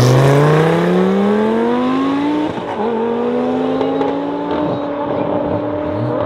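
BMW M5 F90 and twin-turbo Lamborghini Gallardo accelerating hard away from the start line side by side. The engine note rises steadily, drops at an upshift about two and a half seconds in, then climbs again while fading as the cars pull away.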